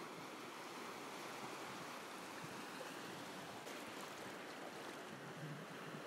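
Faint, steady rush of surf on the Baltic Sea shore, an even wash with no distinct breaks or other events.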